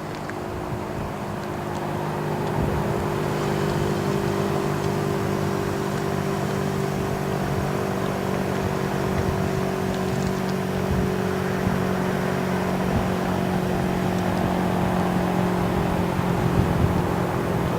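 Motor vehicles idling and moving about, a steady low engine hum with traffic rumble and no change in pitch.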